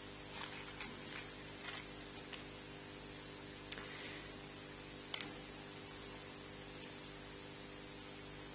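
Steady hiss and mains hum of a live-stream microphone in a quiet church, with a few faint clicks and taps from the altar, the sharpest a quick double click about five seconds in.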